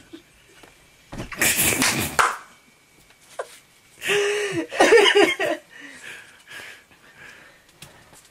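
A person's wordless vocal outbursts: a breathy one about a second in and a voiced one with falling pitch about four seconds in.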